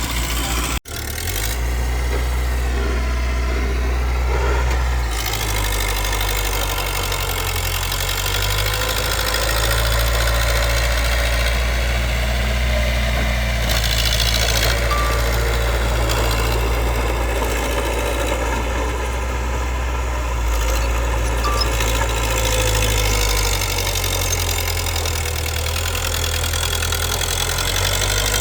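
Diesel engine of heavy earthmoving machinery running steadily, its pitch wavering slightly as the load changes. The sound cuts out for an instant about a second in.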